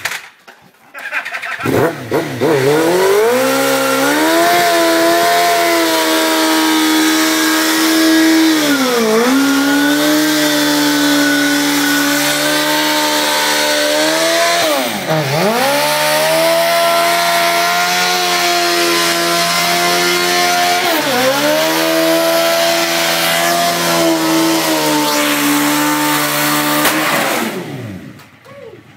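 2002 Suzuki GSX-R1000's inline-four engine held at high revs in a stationary burnout, the rear tyre spinning against the ground with a steady hissing screech. The revs climb about two seconds in, dip sharply three times and rise again, then drop off near the end as the throttle is closed.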